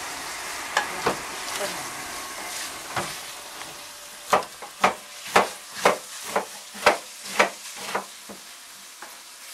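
Kitchen knife chopping cabbage on a cutting board: a few scattered cuts, then steady chopping strokes about two a second from about four seconds in. Under it, minced pork sizzles in a frying pan as it is stirred.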